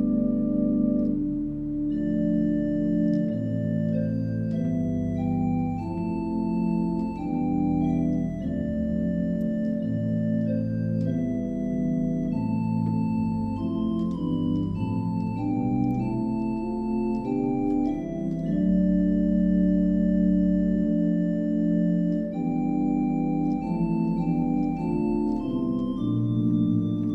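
Allen digital organ playing a slow hymn-tune arrangement: sustained chords with a melody moving above and low bass notes underneath.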